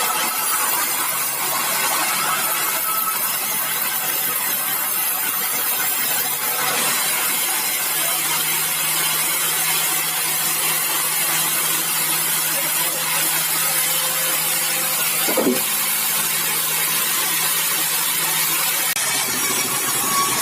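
Sawmill saw running through bengkirai hardwood: a steady, hissing saw noise with a low hum that comes in about a third of the way through and drops out near the end. A single short knock about three quarters in.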